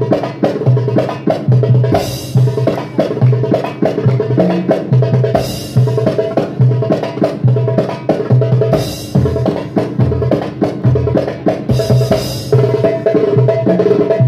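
Darbuka (goblet drum) played solo in a fast, dense rhythm: deep doum strokes under a stream of sharp tek and ka strokes, with short bright, hissy accents every few seconds.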